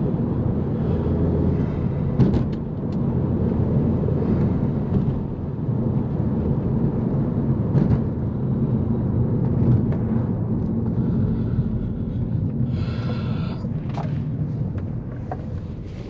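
Inside the cabin of a Mk1 Audi TT with its 1.8-litre turbocharged four-cylinder (BAM 225) engine, the engine hum and road noise run steadily while driving, easing off a little near the end as the car slows.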